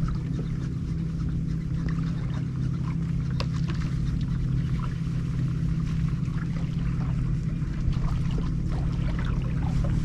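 A boat motor running with a steady low hum, with scattered small clicks over it.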